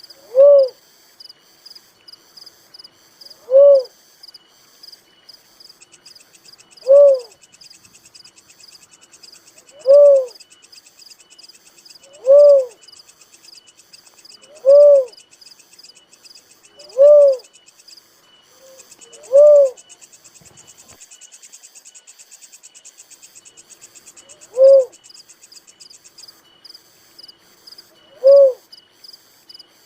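A dove repeating a single short hooting coo that rises and falls in pitch, about every three seconds, ten times, with one longer pause midway. Insects keep up a fast, high pulsing chirr underneath.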